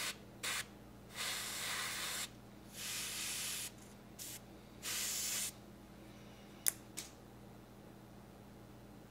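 Airbrush spraying flat coat in about five short bursts of hiss, the longest about a second. Then two sharp ticks about a third of a second apart: a tiny plastic model part springing out of the tweezers and landing.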